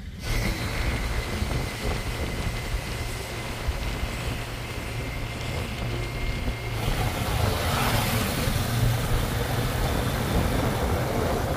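Wind rushing over the microphone with motorcycle engine and tyre noise while riding a motorbike along the road, with a thin steady high whine through the first part. The noise shifts in character about seven seconds in.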